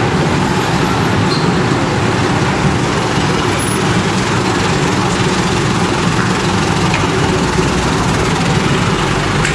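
Steady city street traffic: a continuous rumble of vehicle engines and road noise with no distinct knocks or breaks.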